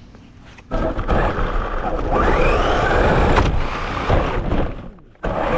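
RC car driving, heard from a camera mounted on the car: a motor whine that rises and falls over wind and tyre noise. It starts under a second in and cuts out briefly about five seconds in before resuming.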